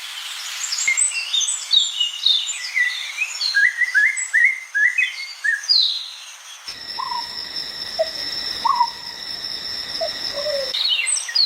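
Small birds chirping: a quick run of short high chirps, then a few lower, spaced-out calls over a steady high-pitched buzz.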